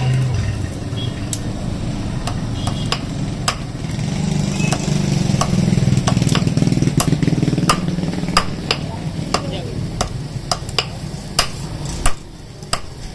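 Hand hammer striking red-hot iron on a steel anvil block at a forge, in sharp irregular blows, more often in the second half. A steady low hum runs underneath.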